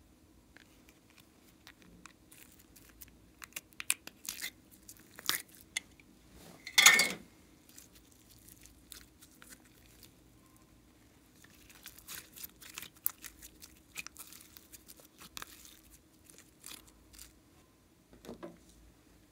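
Slime being handled: clicks and crackling as plastic slime containers are opened and the glitter slime is peeled out and stretched by hand, with a louder tearing, peeling sound about seven seconds in. Near the end there is a soft dull hit as the slime drops into the tray.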